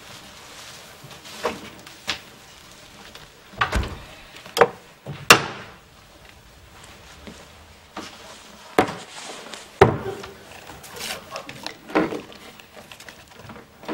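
Scattered knocks and clunks of kitchen handling: a refrigerator door shut and a bottle and other things picked up and set down, about nine separate strikes, the loudest a little after five seconds in.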